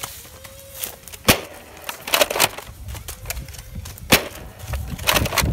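Nerf foam blaster being worked and fired close by: two sharp, loud plastic clacks about three seconds apart, with quicker runs of clicking and rattling between them and near the end.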